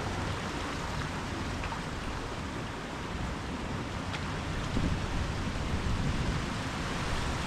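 Ocean surf washing up the beach, a steady hiss of foam and water, swelling a little about five seconds in.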